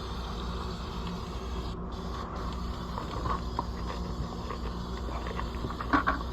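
Green paint being sprayed, an even hiss that cuts out briefly twice about two seconds in, over a steady low hum. A couple of sharp knocks near the end.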